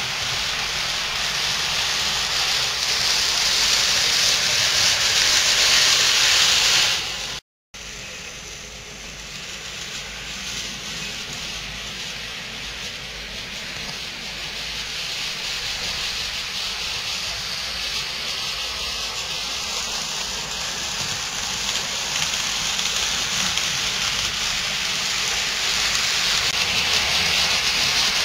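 HO and N scale model trains running on the layout's track: a steady rushing hiss of metal wheels and small electric motors that swells as the trains come close. The sound cuts out briefly about seven seconds in, then builds back up.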